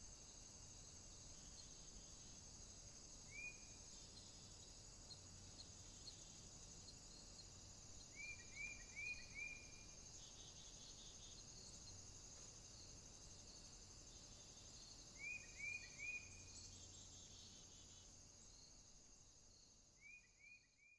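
Faint outdoor ambience: insects chirring steadily, with a bird giving short upward-sliding notes, once and then in quick runs of three or four. It fades out near the end.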